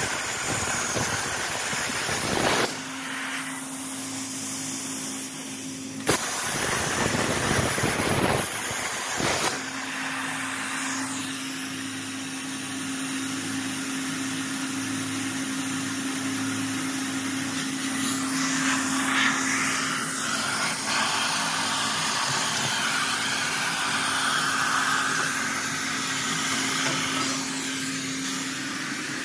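Everlast PowerPlasma 82i plasma torch cutting steel plate: a harsh hiss that starts with a sharp crack as the arc strikes. It stops about two and a half seconds in, strikes again at about six seconds and cuts out at about nine and a half seconds. A steady low hum carries on underneath.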